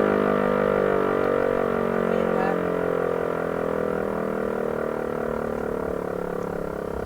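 Landert MSL-3 rotary motor siren running down: a droning multi-tone wail whose pitch slowly sinks while it fades steadily, the rotor coasting to a stop after the signal is switched off.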